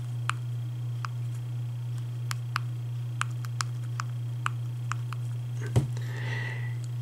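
Plastic stylus tapping and stroking on the touchscreen of an ASUS MyPal A620BT Pocket PC as letters are written into the handwriting input: light, irregular clicks about twice a second, with a duller knock near the end, over a steady low hum.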